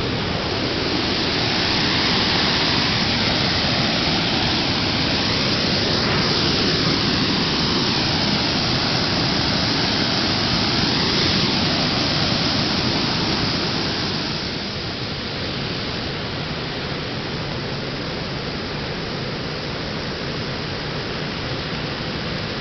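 Steady, loud rushing noise like heavy water or static, with faint sweeping whooshes in its tone; it eases a little about fourteen seconds in.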